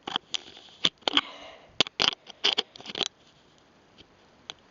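A handful of short, irregular clicks and scrapes of a flexible plastic tripod being handled and screwed tight. The sounds come in the first three seconds, then one more click near the end.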